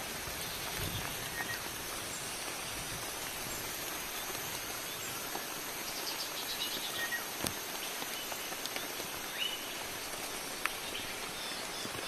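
Steady hiss of rain and water dripping through wet forest foliage, with a few short, high bird chirps about six seconds in and again near the end, and one sharp click about seven seconds in.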